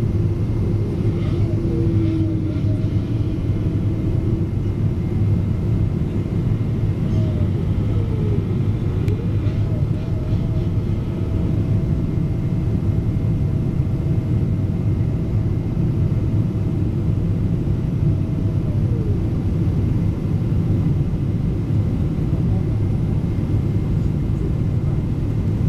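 Steady low roar inside a jet airliner's cabin on descent: jet engine noise and airflow. A faint thin tone rides over it, dipping in pitch twice.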